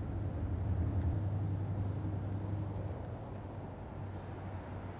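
A low, steady hum with no distinct events, a little stronger in the first second or so.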